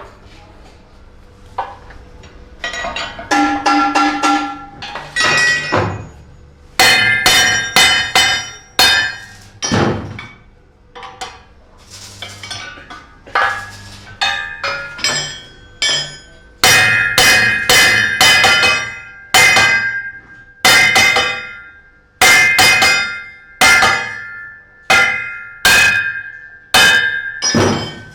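Hammer blows on a steel truck rim, each strike ringing metallically, coming in irregular runs of about one to two blows a second.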